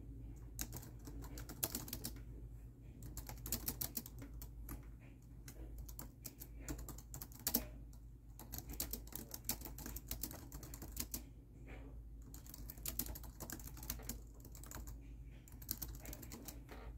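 Typing on a laptop keyboard, keys clicking in quick runs broken by short pauses, over a faint steady low hum.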